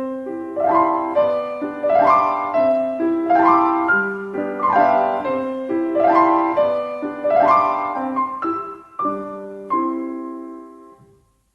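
Solo piano playing the song's outro, a repeating rising arpeggio figure over held bass notes, dying away near the end.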